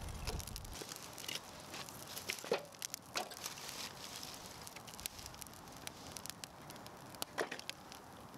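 Small wood fire of kindling and split logs crackling and popping in a metal fire pit, with frequent small snaps and a few louder knocks or cracks: about two and a half seconds in, at three seconds, and near the end. A low rumble stops about a second in.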